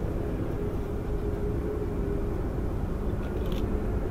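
Boeing 737-8 MAX's CFM LEAP-1B turbofan engines running at low taxi power as the jet rolls along the taxiway: a steady low rumble with a held hum.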